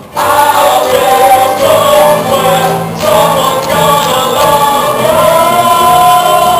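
A stage-musical cast singing together as a chorus over musical accompaniment, coming in loud just after the start and holding long notes.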